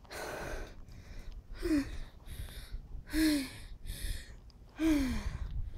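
A boy's voice in four loud gasping breaths, about a second and a half apart. Each ends in a short groan that drops in pitch.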